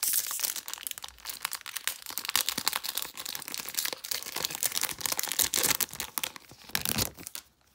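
Foil wrapper of a Kaldheim booster pack crinkling as it is handled and torn open, a dense irregular crackle that stops near the end.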